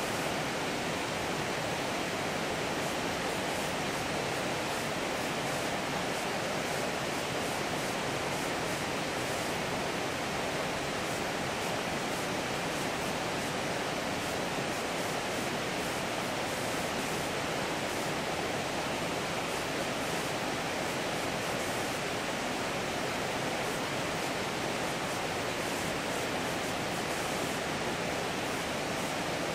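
A steady rush of flowing river water: an even, unbroken hiss with no bird calls standing out.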